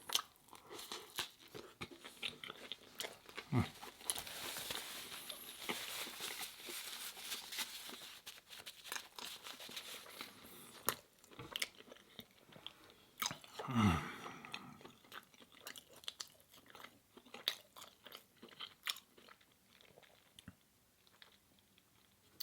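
Close-miked chewing and crunching of a vegan chicken sandwich and fries, with many small wet mouth clicks. There is a denser crunchy stretch a few seconds in, and the sound thins out near the end.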